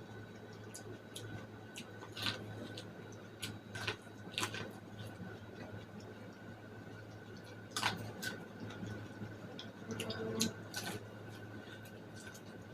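Close-miked eating of boiled corn: scattered wet clicks and short crunchy bursts of biting and chewing kernels, over a steady low hum.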